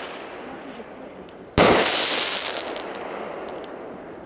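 An aerial firework bursts with a single sharp bang about a second and a half in, then its sound dies away slowly over the following seconds, with a few faint crackles near the end.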